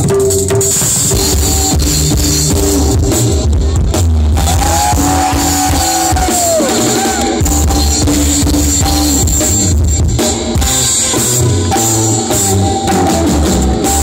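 Rock-fusion band playing an instrumental passage live, driven by drum kit and bass guitar, with guitar and tabla, heard loud through a phone microphone in the crowd.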